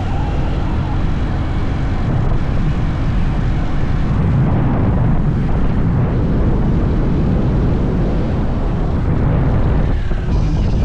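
Loud, steady low rumbling noise with no clear rhythm or tone.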